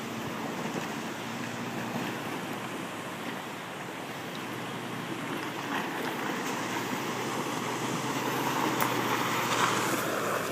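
Off-road vehicle fording a river: a low engine hum under steady rushing and splashing water, growing louder near the end.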